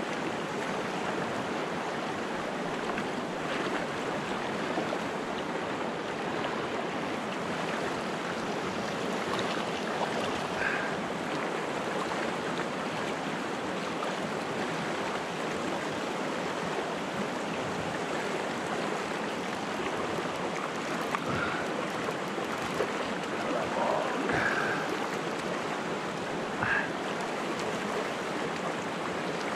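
Steady rush of fast river current flowing around the angler, an even wash of moving water, with a few faint brief sounds over it in the second half.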